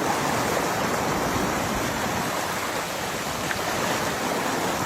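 Steady rushing of water, an even roar without breaks.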